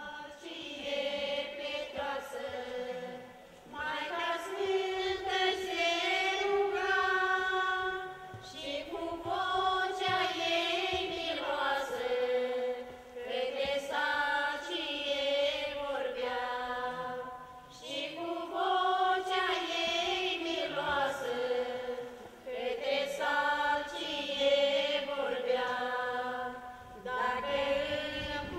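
Women's folk choir singing a slow song in long held phrases, with short breaths between them.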